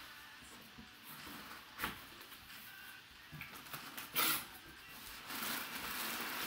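A cardboard box being cut open and handled: a box cutter scraping through the packing tape along the box's edge, a sharp rasp of cardboard about four seconds in, then crumpled brown packing paper rustling.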